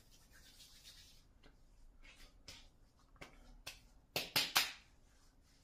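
Palms rubbing and patting aftershave onto freshly shaved cheeks: soft brushing strokes, then three sharp slaps of the hands against the skin about four seconds in.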